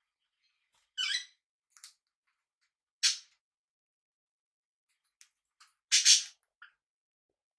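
Pet parrots giving short, scratchy high-pitched calls, about seven separate calls with pauses between, the loudest about three seconds in and a double call about six seconds in.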